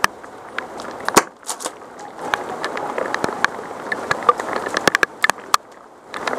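Heavy rain: a steady hiss with raindrops striking the camera and gear close by as irregular sharp ticks, a few louder than the rest.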